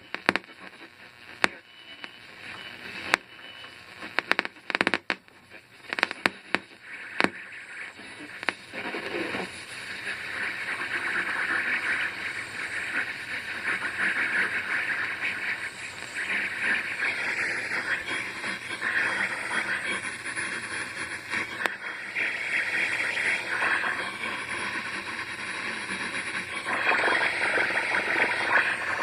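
Radio static: sharp, irregular crackles and clicks for the first several seconds, then from about nine seconds in a steady, wavering hiss.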